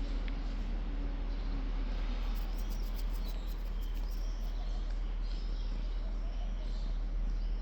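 Outdoor ambience: a steady low rumble and hiss, with faint high chirps and squeaks over it from about two seconds in.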